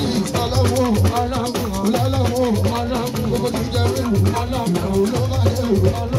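Fuji music playing continuously, with a shaker rattling steadily over drums and other percussion.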